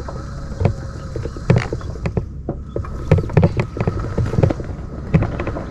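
Powered wheelchair on the move: a steady motor hum and whine, with many irregular clicks, knocks and rattles from the chair as it rolls along.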